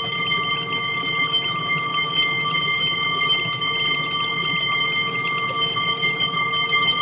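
Adler twin-bell alarm clock ringing continuously, its hammer rattling rapidly between the two bells at a steady pitch.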